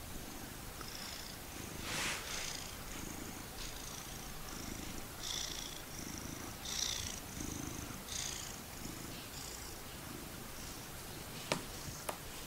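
A cat purring while a mouse squeaks over and over in short, high-pitched chirps. A couple of sharp clicks come near the end.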